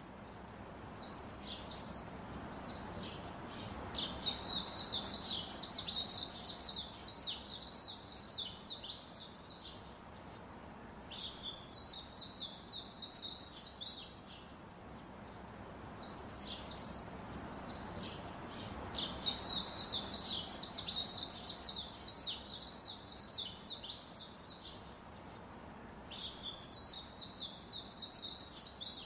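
Small birds twittering in rapid chirping phrases a few seconds long, with short pauses between them, over a steady background hiss.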